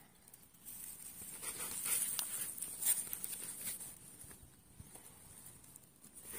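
Close rustling and crackling with scattered sharp clicks, loudest from about one to four seconds in: handling noise and grass brushing the phone while a hooked climbing perch is swung in to the bank on a line.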